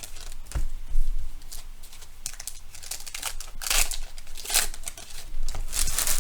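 Baseball card pack wrappers being torn open and crinkled, in a string of short crackling bursts, with a dull bump on the table about a second in.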